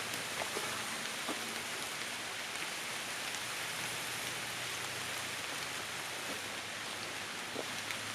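Light rain falling on tree leaves: a steady hiss with a few scattered drops ticking.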